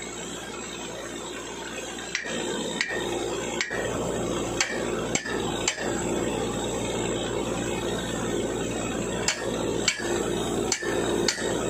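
Sharp metallic strikes with a short ring, about ten in all: a run of six, a pause, then four more. Under them is the steady noise of borewell drilling machinery running, with its hum growing louder a couple of seconds in.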